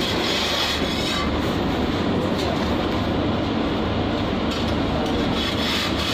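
Steady, loud mechanical rumble with a hiss over it, continuing without a break.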